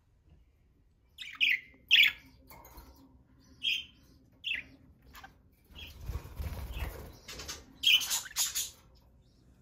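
Pet budgerigars giving short, sharp chirps, each falling quickly in pitch, in scattered bursts with a cluster near the end. There is a low rustle about six seconds in.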